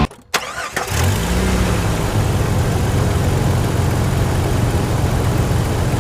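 A motor starts with a sharp onset, rises in pitch over about a second, then runs steadily.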